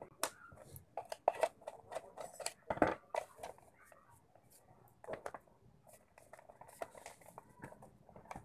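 Plastic housing of a hand mixer being handled and prised apart: irregular plastic clicks, taps and knocks, with a louder knock about three seconds in.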